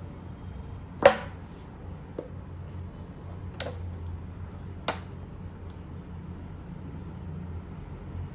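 Unboxing handling noise: a few sharp clicks and taps of a case or packaging being handled, the loudest about a second in and two more around four and five seconds in, over a steady low hum.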